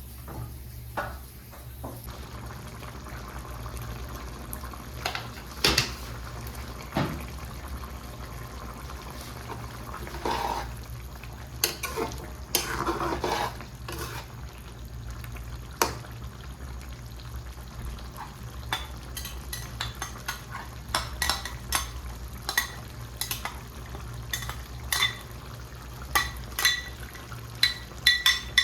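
A metal spoon clinking and scraping against a karahi pan as the chicken is stirred, with some frying and a steady low hum underneath. The clinks are scattered at first and come thick and fast with a ringing metallic tone in the last third.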